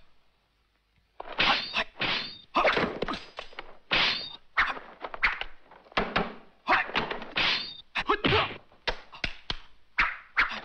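Martial arts film fight sound effects: a quick, irregular run of whooshing swings and thwacking hits, starting about a second in.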